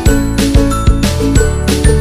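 Background music: a jingling, bell-like tune over a steady beat, about two beats a second.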